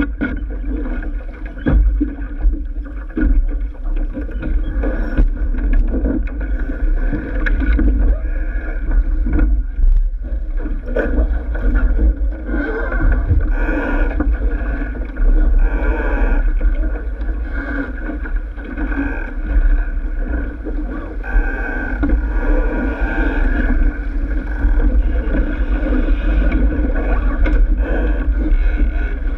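A sailing keelboat under way: wind buffeting the on-board microphone with a constant low rumble, water rushing along the hull, and scattered knocks and clicks from the crew working sheets and gear on deck.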